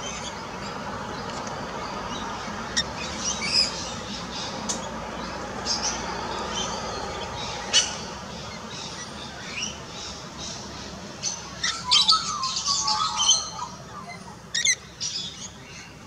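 Birds chirping and squawking over a steady background hiss. Short high-pitched calls come now and then, a busier run of squawks and chirps comes about three-quarters of the way through, and a quick rattling call follows shortly before the end.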